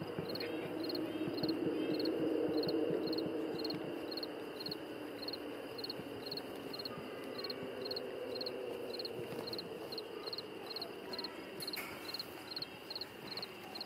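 Crickets chirping in a steady rhythm, about two chirps a second, over a constant insect trill. A louder low rustling noise is heard in the first few seconds.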